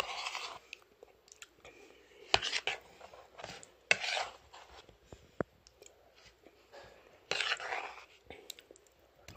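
Eating a soft jelly dessert with a spoon: several short bursts of the spoon scraping and clinking in the bowl, a few sharp clicks, and quiet mouth sounds between.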